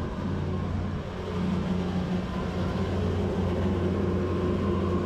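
Steady low mechanical hum of a running motor, growing slightly stronger about a second in.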